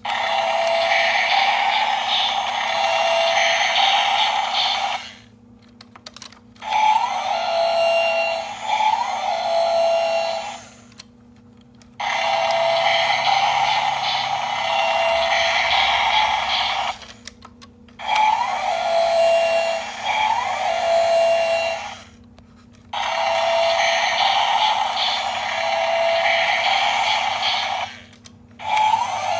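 Motorized toy bulldozer running: its small gear motor whirs while its speaker plays an electronic engine sound effect with short repeating beeps, in five runs of a few seconds, each stopping abruptly for about a second before the next.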